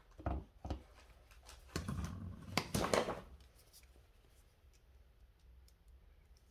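Electrical wire being handled at an outlet box: a few short clicks, then a couple of seconds of rustling and scraping about two seconds in.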